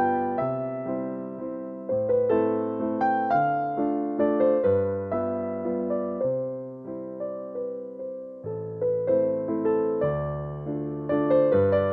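Background piano music: struck notes and chords decaying one after another, a slow melody over a lower accompaniment.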